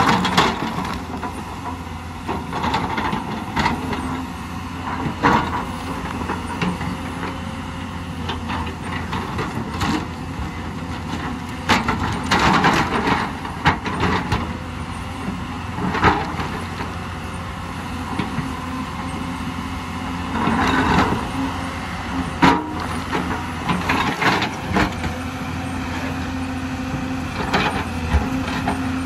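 Hyundai crawler excavator's diesel engine running steadily under digging load, with repeated knocks, scrapes and clatters as the bucket breaks out and drops rock and soil.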